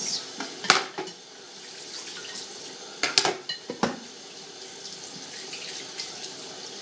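Dishes and cutlery clinking and knocking in a kitchen sink as they are rinsed under a running tap. There are a few sharp clatters, one about a second in and a cluster around the middle.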